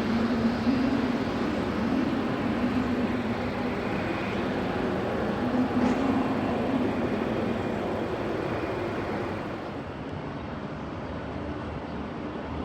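Jet aircraft engine noise: a steady roar with a low wavering hum, easing off about ten seconds in.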